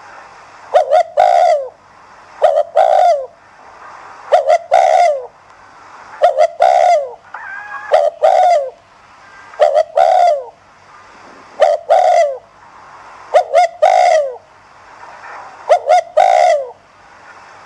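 Spotted dove cooing over and over, a phrase about every two seconds, each a couple of quick short notes followed by a longer falling coo. It is the 'thúc gù' urging coo that keepers use to set other doves cooing.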